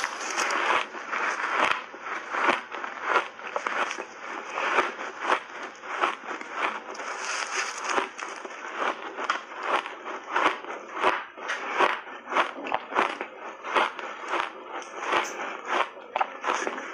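Crunching of refrozen shaved ice being bitten and chewed up close, in a steady run of sharp, separate crunches about two or three a second.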